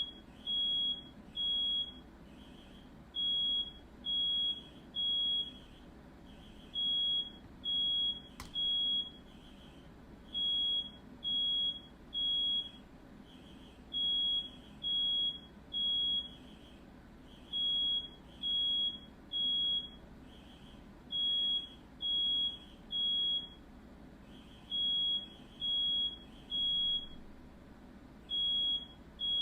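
Smoke alarm sounding a high beep in groups of three, each group followed by a short pause and repeating about every three and a half seconds: the temporal-three pattern that signals a fire alarm. A single brief click comes about eight seconds in.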